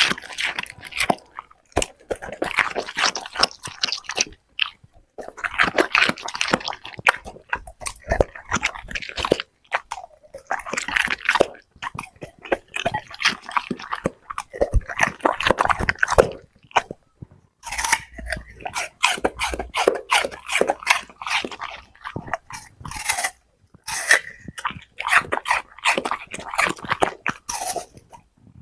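A dog chewing and crunching food, crisp bites coming in quick runs broken by short pauses.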